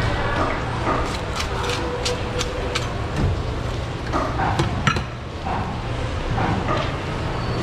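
Fish-market working noise: a steady low hum under distant voices, with scattered sharp clicks and knocks, the loudest about five seconds in.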